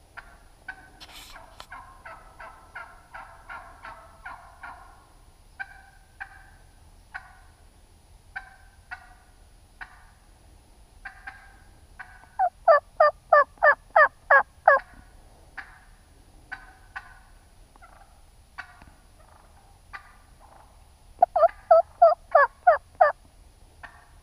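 Wild turkeys calling: scattered soft clucks and short calls, then twice a loud run of rapid calls at about four a second, about ten in the first run and about eight in the second.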